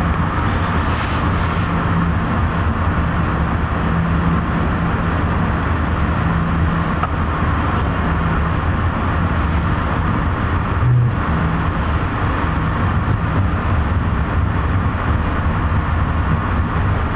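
Steady rumble and low hum inside an Amtrak passenger coach running along the track, with a brief low tone about eleven seconds in.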